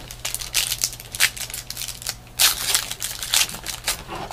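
Trading card packs and cards being handled: irregular crinkling and rustling of wrapper foil and cards sliding against each other.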